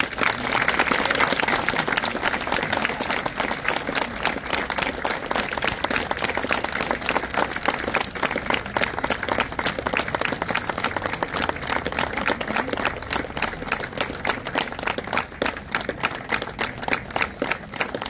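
Audience applauding at the end of a Kecak dance performance, dense at first and thinning into more scattered claps toward the end.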